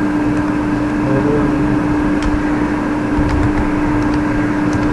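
Steady background hum and hiss with one constant tone, like a fan or electrical hum on the recording microphone. A few faint keyboard clicks come through as a name is typed.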